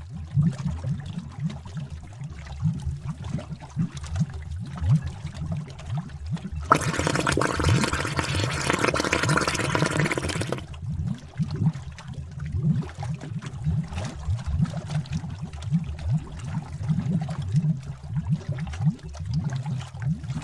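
Witch's-cauldron sound effect: thick liquid bubbling with irregular low, deep pops, and a rushing hiss of steam or gushing liquid that swells about seven seconds in and lasts around four seconds.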